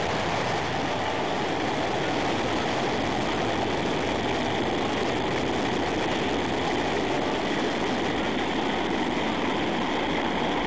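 Long March 2F rocket's engines running at full thrust as it lifts off the pad: a steady, even noise with no breaks.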